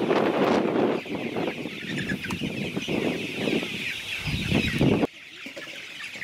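A flock of brown chickens clucking and chattering continuously, many birds calling at once. A louder rumbling noise underneath cuts off about five seconds in, leaving the clucking on its own.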